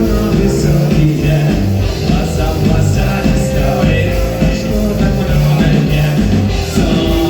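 Rock band playing: guitars and bass over a steady drum beat.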